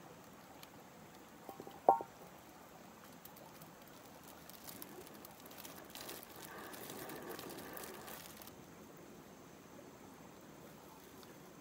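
A single sharp clink with a brief ring about two seconds in. Then a few seconds of crinkly rustling from a plastic food bag being handled, over a faint outdoor background.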